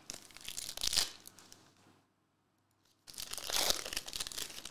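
The foil wrapper of a trading-card pack crinkling and tearing as it is ripped open by hand. It comes in two bursts, one at the start and another about three seconds in.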